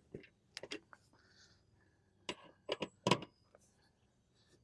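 A few sharp metallic clicks and knocks from a 3/8 ratchet levering the mower deck's belt tension arm to slacken the belt, clustered about a second in and again from two to three and a half seconds.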